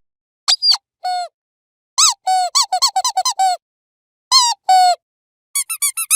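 Rubber squeaky dog toy squeezed in uneven bursts: a couple of squeaks, a quick run of about eight, then another pair and a fast flurry, with short silences between. Each squeak is a shrill pitched note that often drops at the end.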